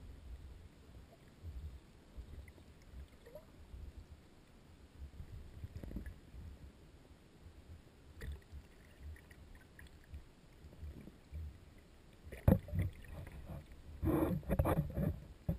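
Muffled low rumble of water moving past a GoPro in its sealed housing held underwater from an inflatable kayak, with scattered faint knocks. A sharp knock comes about twelve seconds in, and a cluster of louder knocks and clatter near the end.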